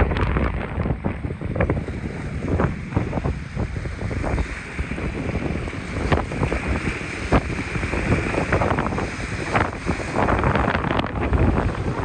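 Strong gusty wind buffeting the microphone with a heavy low rumble and scattered short crackles, over waves washing against the lake shore.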